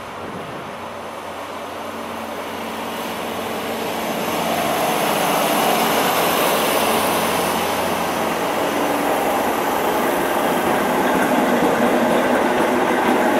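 Transport for Wales diesel multiple unit approaching and running alongside the platform. Its engine and wheel noise grow louder over the first few seconds, then hold steady as the carriages pass close by.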